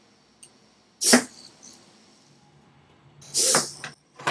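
Hobby servos of a six-legged robot whirring in short bursts as the legs move, once about a second in and again, longer, near the end, with a faint high steady whine from the servos holding position between moves.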